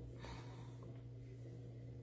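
Low steady hum of a quiet room, with a brief faint breath about a quarter second in.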